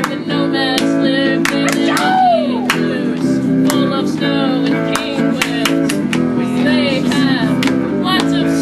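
Strummed acoustic guitar playing chords, with voices singing along.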